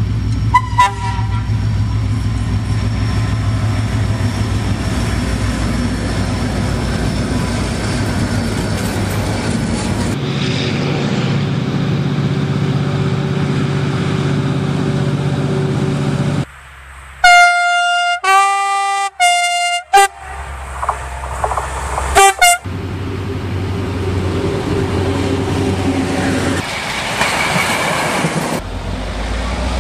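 Diesel locomotives, Croatian Railways series 2062, running with a steady low engine drone. Loud multi-tone air horn blasts come about 17 to 20 seconds in, with a shorter blast about two seconds later and a brief one right at the start.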